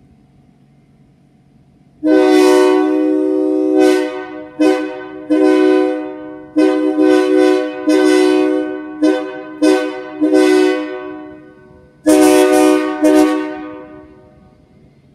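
Locomotive air horn sounding a chord, blown by hand in a rhythmic pattern. It opens with one long blast about two seconds in, then gives a string of short and medium toots, and ends with a longer blast that breaks once near the end.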